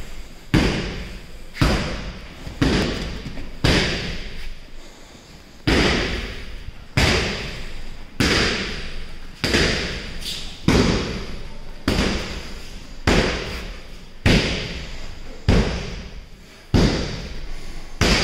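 Repeated heavy thumps, about one a second and slightly uneven, each followed by a long echo in a large hall.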